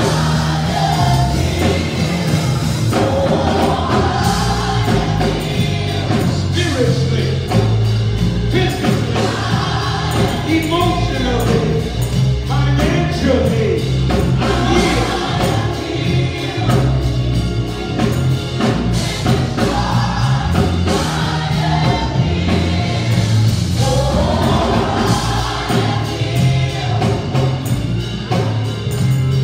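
Gospel choir singing into microphones over live instrumental accompaniment, with a moving bass line and a steady beat.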